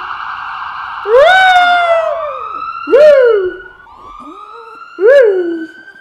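A police siren wailing, with a dog howling along three times. Each howl rises sharply and falls away, and the howls are louder than the siren, whose tone climbs slowly again in the second half.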